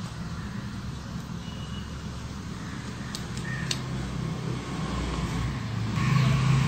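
Steady low background rumble with a hum in it, and two brief clicks a little past the middle.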